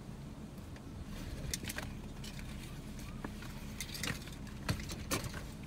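Steady low rumble of gusty wind, overlaid from about a second in by a scatter of short, sharp clicks and taps.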